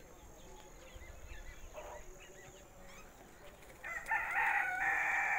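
A rooster crowing once, a loud call of about two seconds starting about four seconds in, over faint chirps of small birds.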